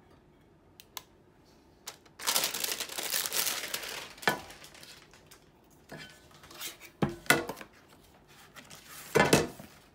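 Packing wrap crinkling and tearing as it is pulled out of a new nonstick frying pan, followed by several sharp knocks and clatters of the metal pan being handled.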